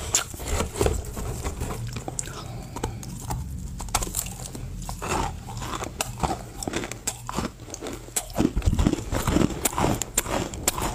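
Close-miked crunching and chewing of Chinese loess clay chunks eaten with wet clay paste: irregular sharp crunches, thicker and louder in the second half, over a steady low hum.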